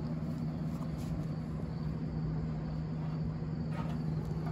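Steady low machine hum, with a faint brief handling noise near the end.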